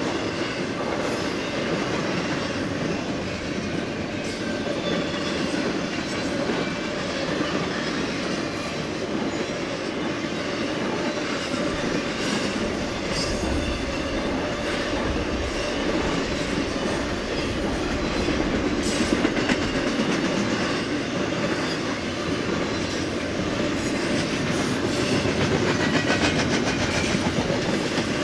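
Intermodal freight train cars rolling past, a steady rumble of steel wheels on rail with repeated clickety-clack over the rail joints.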